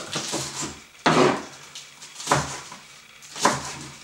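A chef's knife chopping spinach leaves on a plastic cutting board: three separate chops a little over a second apart, each a sharp knock of the blade on the board.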